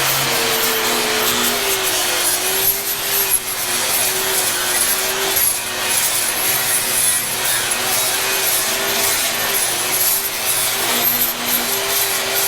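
A wire wheel on a power tool scrubbing plasma-cut pickled-and-oiled steel to shine it up: a harsh, continuous scratching hiss over a motor whine that wavers slightly in pitch as the wheel is worked against the metal.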